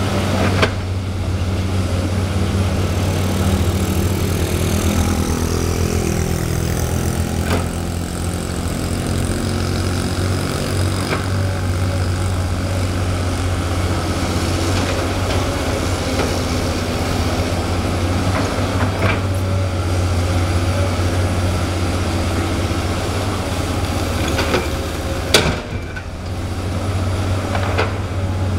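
Komatsu PC200 excavator's diesel engine running steadily under digging load, rising in pitch a few seconds in. It is broken by several sharp knocks of rock and steel, the loudest near the end.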